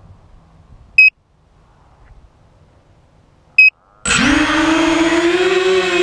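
Two short high electronic beeps from the quadcopter's electronics, then about four seconds in its Sunnysky 2300kv brushless motors spin up suddenly into a loud whine with several pitches that rises quickly and then holds steady as the quad takes off.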